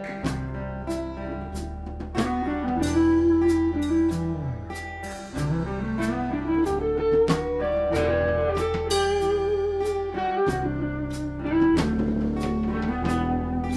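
A band playing an instrumental intro: a guitar line sliding up and down in pitch over bass and a drum kit keeping a steady beat.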